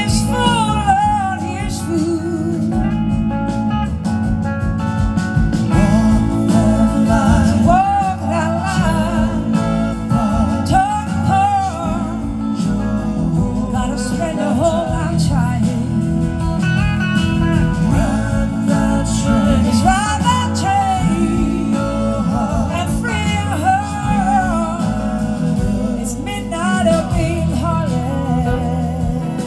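Live band playing a slow soul-blues song: a woman singing lead with a wavering, vibrato-laden voice over electric guitars, bass and drums, recorded from the audience.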